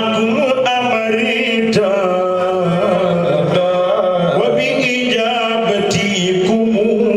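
A man chanting a religious song into a microphone, amplified, in long wavering held notes over a low steady drone.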